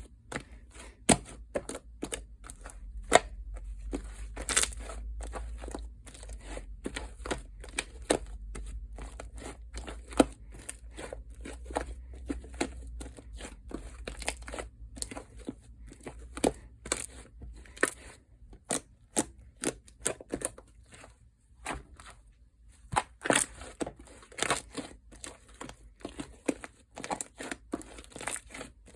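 Fluffy shaving-foam slime being squished and kneaded by hand, giving many irregular sharp pops, clicks and crackles.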